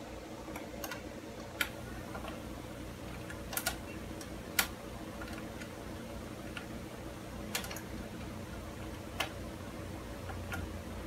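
Scattered sharp clicks of a screw being turned by hand, fastening a chair's metal leg bracket to its plastic seat, over a steady low hum.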